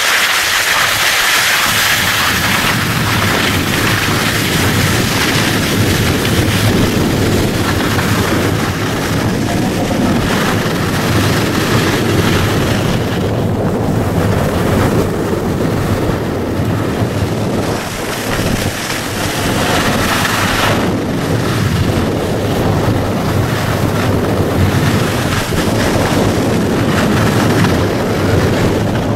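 Steady rush of wind buffeting the microphone, mixed with skis scraping and hissing over snow while skiing downhill.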